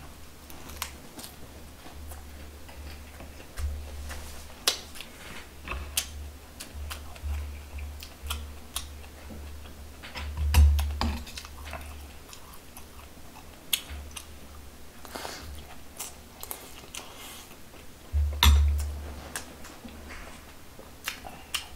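Close-miked chewing of a leaf-wrapped mouthful of grilled meat: a string of wet mouth clicks and smacks, with heavier low thumps about ten and eighteen seconds in.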